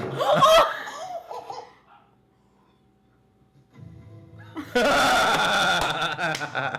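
A loud burst of laughter, then a pause of near silence, then loud music with steady sustained tones starting about two-thirds of the way in.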